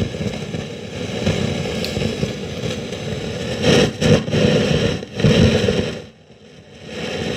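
Guitar signal through a super drive overdrive pedal switched on, giving loud noise and distorted buzz, the noise the owner suspects is a fault in the pedal. It swells louder about 4 and 5 seconds in and drops away about 6 seconds in.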